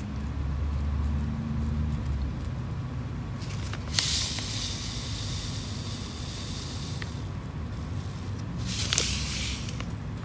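Fine decorative sand pouring onto a planter, a hissing trickle that starts with a click about four seconds in and runs for about three seconds, then again briefly near the end. A low rumble sits under the first two seconds.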